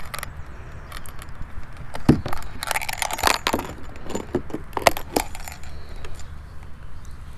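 Small hard fishing gear clinking and rattling in the hands while a bass is weighed on a scale: a run of sharp clicks and jingles, busiest between about two and five seconds in, over a steady low rumble.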